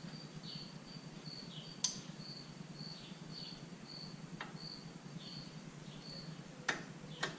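A cricket chirping steadily in short high chirps, about two a second. Over it come a few sharp metal clicks as the snap ring is worked onto the end of the front axle shaft at the hub.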